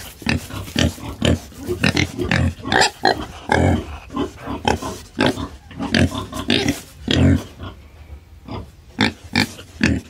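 Several pigs grunting in a quick, irregular stream of short, overlapping grunts.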